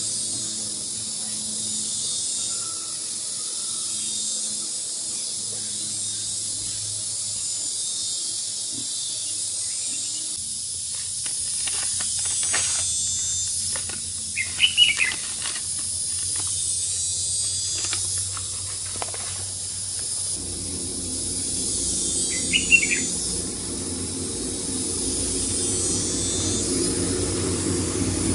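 Steady high-pitched insect chorus with two short bird chirps, one about halfway through and one near three-quarters of the way. A low rumble joins in for the last third.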